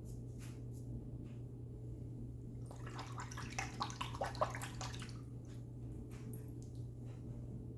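West Coast Shaving Lithe safety razor scraping across stubble in short separate strokes, with water running for about two seconds in the middle as the razor is rinsed. A steady low hum lies under it all.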